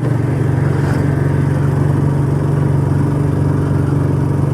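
Motorcycle engine running at a steady speed while cruising, an even hum that holds one pitch.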